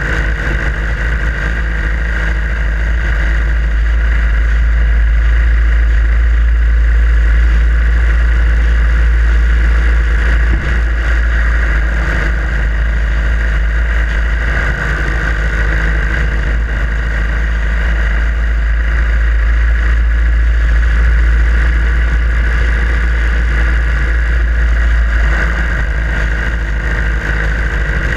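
Harley-Davidson Iron 883's air-cooled V-twin engine running steadily while riding, with a heavy low rumble of wind on the microphone.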